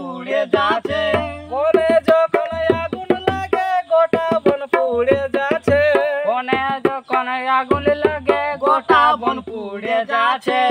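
Hand-played two-headed barrel drum (dholak) beating a steady rhythm of deep bass strokes and sharp slaps, accompanying a man singing with held and bending notes.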